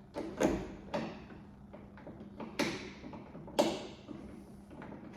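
Hex key on the van's rear door handle mechanism: a handful of sharp metallic clicks and knocks, the two loudest about two and a half and three and a half seconds in, as the handle's small hex screw is nipped up tight.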